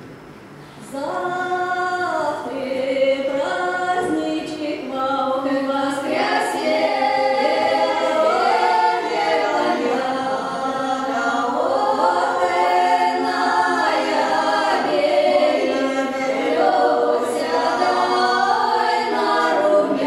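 Three women's voices singing a Russian folk song a cappella in several parts, starting about a second in.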